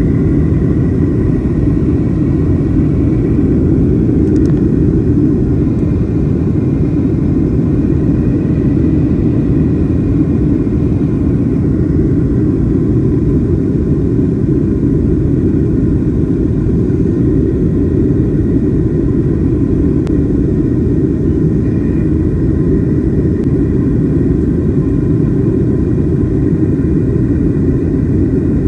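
Jet airliner's cabin noise in flight: a loud, steady rushing drone of engines and airflow, deepest in the low range, with faint steady tones above it.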